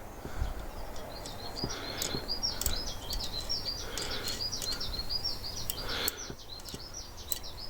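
A small bird chirping a rapid series of short, repeated high notes, several a second, starting about a second in, with a few faint clicks in the background.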